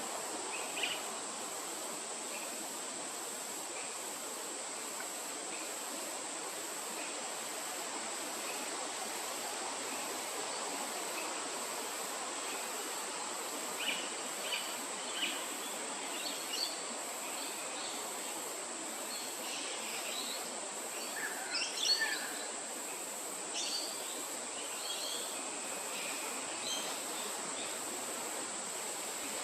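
Steady high insect drone with a hiss of outdoor background, and short bird chirps scattered through the second half, a quick cluster of them the loudest about two-thirds of the way through.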